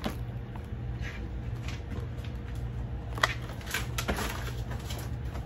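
Faint rustling and a few light knocks as plastic-wrapped food packages are handled and set down on a kitchen counter, over a steady low hum.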